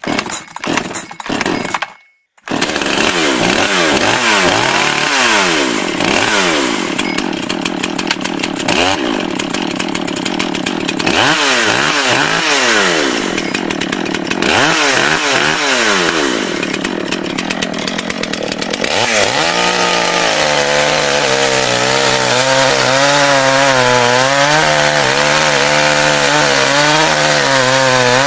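Chainsaw engine sputtering in a few short bursts, then running and being revved up and down again and again. From about two-thirds of the way in it is held at high speed with a wavering pitch.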